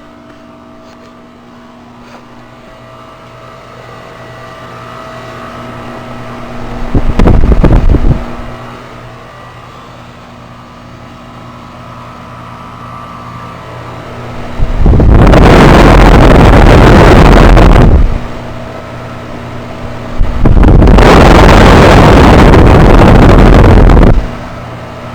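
2008 Goodman heat pump running with a steady hum. Three times, briefly about 7 s in and then for about three and four seconds near the end, a loud rushing of air buffeting the microphone drowns it out.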